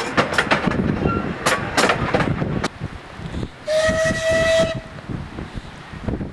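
Miniature railway coaches clattering past with sharp, irregular clicks from the wheels. A little under four seconds in, the small steam locomotive gives one steady steam whistle blast of about a second over a hiss of steam.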